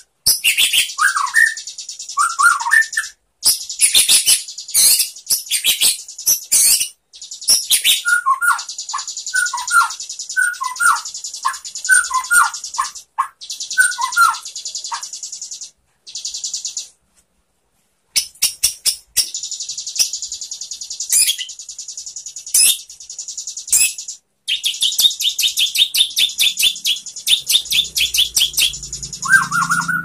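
White-rumped shama (murai batu) singing: fast high trills and rattling chatter with short sliding whistled notes mixed in, broken by several short pauses.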